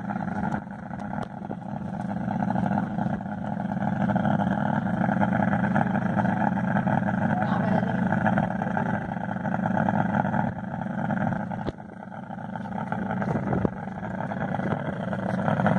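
Engine of an amphibious vehicle running steadily, briefly dropping off about twelve seconds in and then building back up.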